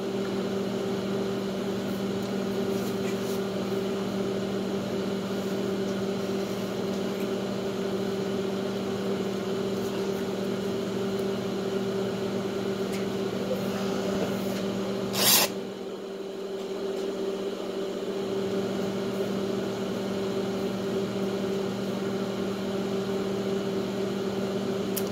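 Microwave oven running after being set for 90 seconds, a steady hum, with one sharp click about fifteen seconds in.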